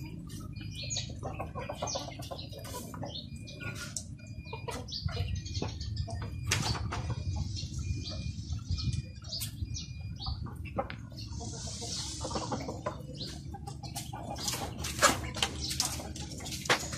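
Flock of chickens in a pen: scattered short chirps and clucks with clicks and rustling, and a burst of rustling about twelve seconds in, over a steady low rumble.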